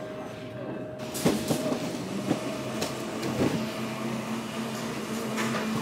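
Busy shop-floor background noise: a steady hum with scattered footsteps and knocks as people move about.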